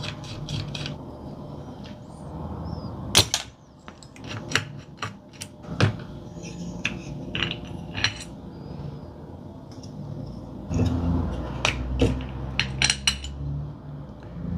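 Small screwdriver working screws out of a handheld radio's circuit board, then the board being lifted from its metal chassis and set down: scattered small clicks, clinks and scrapes of metal and circuit-board parts, with a busier stretch of handling noise near the end.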